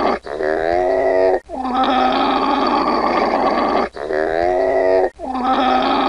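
Llama vocalising: a short call with a wavering pitch, then a longer, rougher call, the pair repeated twice with a brief break between each call.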